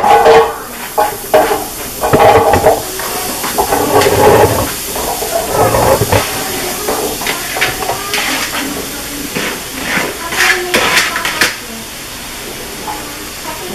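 Chopped zucchini and squash dropping into a hot frying pan and sizzling, a steady hiss broken by louder spurts as more pieces land. Knocks and scrapes come as the pieces are pushed off a plastic bowl.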